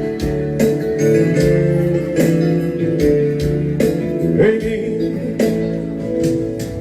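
Seresta music played on electronic keyboards: sustained chords and melody over a steady beat, an instrumental passage without words.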